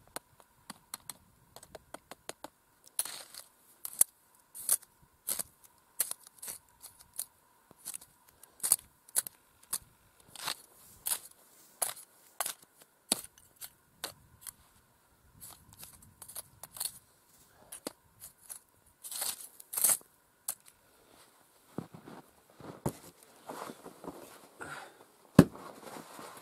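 Ice scoop scraping and crunching through snow and slush in an ice-fishing hole, sharp scrapes about once or twice a second. Near the end there is a single loud knock.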